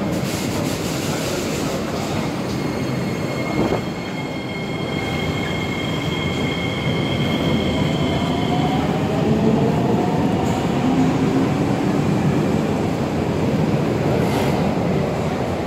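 Kawasaki–CRRC Sifang C151C metro train moving along the platform: a steady rumble of wheels on rail with high steady electrical tones from its traction equipment. From about seven seconds in, a motor whine rises in pitch as the train gathers speed, with a single knock about four seconds in.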